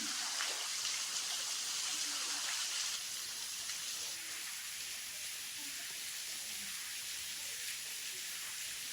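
Steady rush of falling water from a small waterfall, a little fainter after about three seconds.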